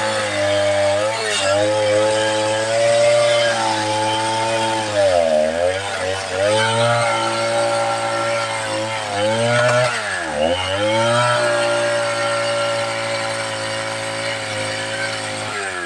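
Big two-stroke chainsaw running at high revs, cutting teak; the engine's pitch dips sharply twice, about 5 and 10 seconds in, and recovers each time, then drops near the end as the throttle comes off.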